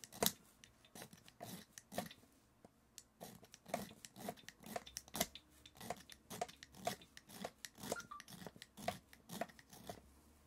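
Hand file rasping on a metal part in quick back-and-forth strokes, about two a second, with a short pause early on. The part is being filed down so it no longer touches the tyre.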